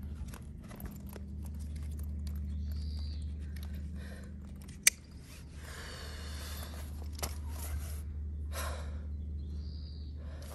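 A black nylon sling bag being handled: fabric rustling and its strap being pulled and adjusted, with one sharp click about five seconds in. A low steady rumble runs underneath.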